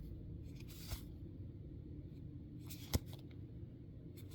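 Foil trading-card booster pack being torn open and its cards handled: faint crinkling and rustling in short bursts, with one sharp click about three seconds in.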